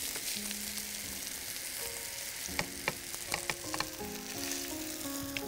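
Food sizzling in hot oil in a frying pan, stirred with a wooden spatula, with a few sharp clicks of the spatula against the pan midway. Soft background music with held notes underneath.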